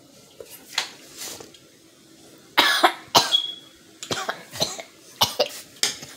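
A person coughing in a repeated fit, a few coughs at first and then harsher, closer coughs from about two and a half seconds in: a spice cough from chili flakes caught in the throat after tasting a hot, spicy butter sauce.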